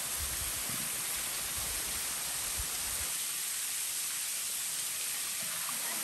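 Waterfall pouring down a rock face into a pool: a steady, even rush of falling water. A low rumble sits under it for the first three seconds and then stops.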